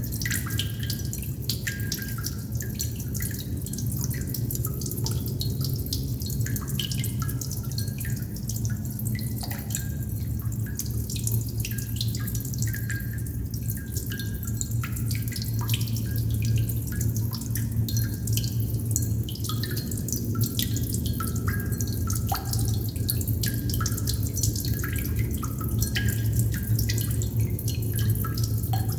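Water droplets dripping steadily and irregularly, many small plinks and drops close together, over a steady low hum.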